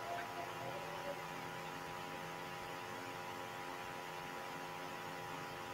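Steady electrical hum with several fixed tones over a low hiss.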